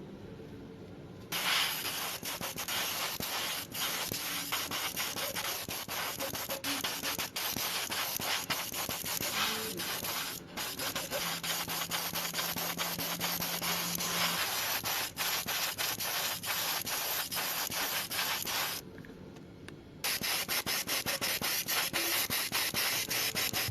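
Sanding: a steady rasping hiss made of rapid strokes, starting about a second in and stopping for about a second near the end before going on again.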